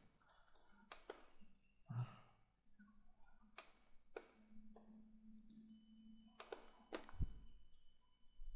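Quiet room with scattered single computer-mouse clicks, about eight of them spread across the stretch, and a soft breath about two seconds in.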